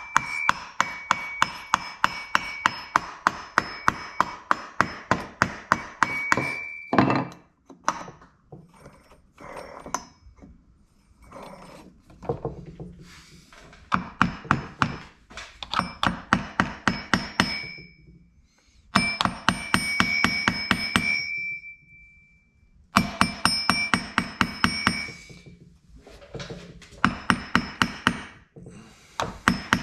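Light, rapid hammer taps on metal, about four a second, each with a short metallic ring. They come in runs of a few seconds with brief pauses, knocking at a stuck part of a Makita DCS6401 chainsaw that is held on by a ring of built-up grime.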